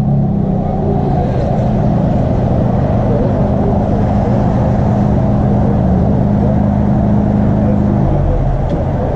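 2020 Honda Civic Type R's turbocharged 2.0-litre four-cylinder running through a muffler- and resonator-delete exhaust, holding a steady note that shifts about eight seconds in.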